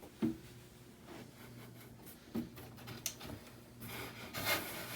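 Flat-pack furniture parts being handled as cam bolts are slid into place: a few sharp clicks and knocks spread apart, then a rubbing, scraping noise near the end.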